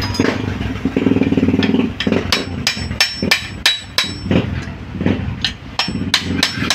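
Hammer striking a steel punch set on the crankshaft end of a Kawasaki Barako engine, driving the shaft to split the crankcase halves: a quick series of sharp metallic hits with a short ring, about three a second, starting about two seconds in. Before the hits, an engine runs steadily in the background.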